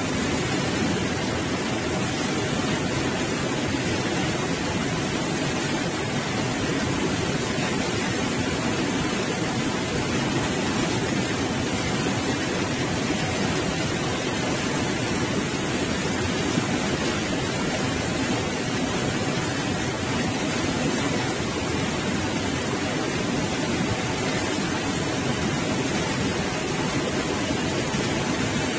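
Steady rushing of a flowing river, an even noise with no breaks.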